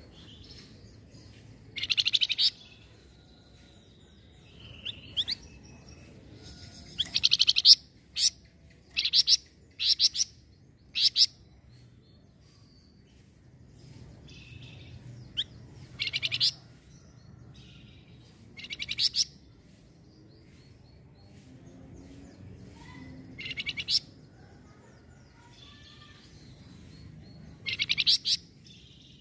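Flamboyan songbird giving short, high, rapidly pulsed chirping bursts, about a dozen of them at irregular intervals with pauses of a few seconds between, the busiest run about seven to eleven seconds in.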